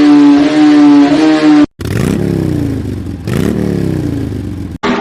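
Motorcycle engine with a loud aftermarket silencer held at high revs at a steady pitch. After an abrupt cut about two seconds in, it is revved up and back down twice.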